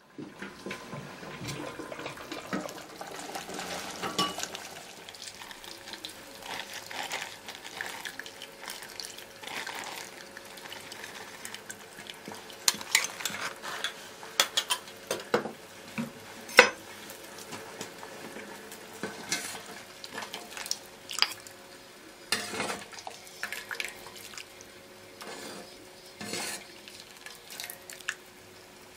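Metal utensils clinking, knocking and scraping against a stainless-steel stockpot of chicken broth as it is stirred and worked, in irregular clatters. One sharp clank about sixteen seconds in is the loudest.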